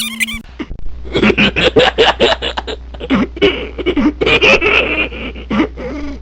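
A baby laughing in fits of quick, repeated giggles, over a low steady hum.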